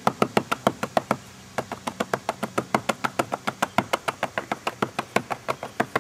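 Rapid, even tapping, about six taps a second, as a small metal pan of freshly placed brownstone patching mortar is tapped to consolidate it, with a brief pause about a second in.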